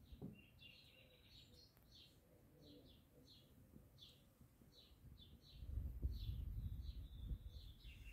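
A small bird chirping over and over, short high notes about two a second. A low rumbling noise comes in about five and a half seconds in and is louder than the chirps.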